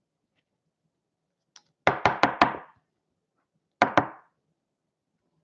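Rigid plastic card holders knocking on a tabletop as they are set down: a quick run of four knocks about two seconds in, then two more about a second and a half later.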